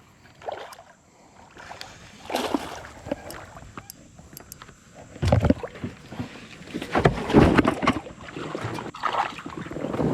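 Splashing and knocking of a hooked bass being landed and handled in a boat, in irregular bursts that grow louder about halfway through.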